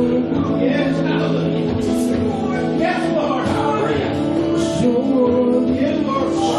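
Worship music: voices singing over instrumental accompaniment with guitar.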